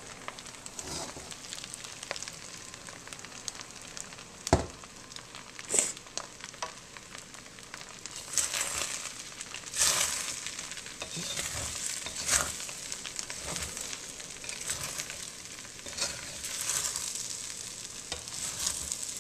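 Fried rice and beaten egg sizzling in a hot steel wok while a wooden spatula stirs and tosses it, scraping and knocking against the pan. One sharp knock of the spatula stands out a few seconds in.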